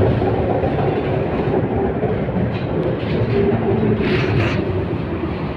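LVS-86K articulated tram running along its track, a steady rumble of wheels and running gear heard through an open vent window. A few short clicks come between about two and a half and four and a half seconds in.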